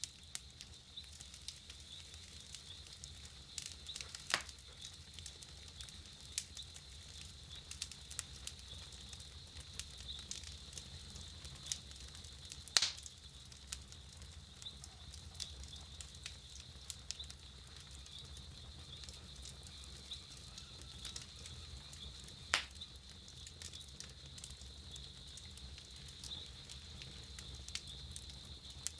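Wood campfire crackling, with frequent small snaps and three louder pops about 4, 13 and 23 seconds in.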